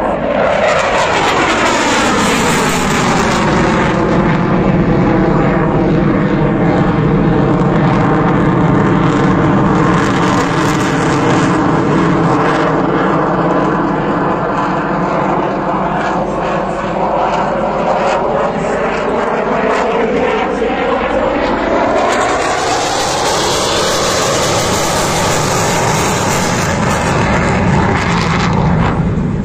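Loud jet engine noise of a delta-wing fighter jet flying a display pass, with a whooshing, phasing tone that sweeps down and then back up as the aircraft passes.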